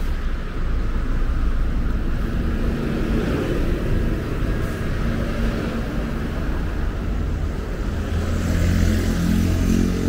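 Road traffic passing on a nearby road, mixed with a steady low rumble of wind on the microphone of a moving bicycle; an engine comes by more clearly near the end.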